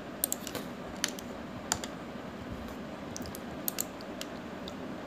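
Computer keyboard and mouse clicks: about a dozen short, sharp clicks at irregular intervals, some in quick pairs, over a faint steady hiss.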